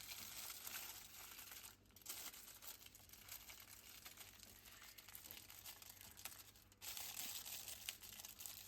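Faint crinkling and rustling of wrapping paper as it is folded around a shawarma wrap, with two short pauses.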